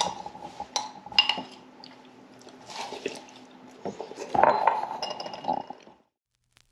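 Metal utensils and cutlery clinking against dishes and a stainless steel pot: a string of light clinks, some with a brief ring, busiest around four to five seconds in. The sound cuts off abruptly about six seconds in.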